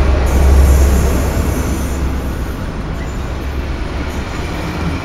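Passenger coaches of a train rolling past on the track: a steady low rumble of wheels on rail that fades over the first two seconds or so, then holds even.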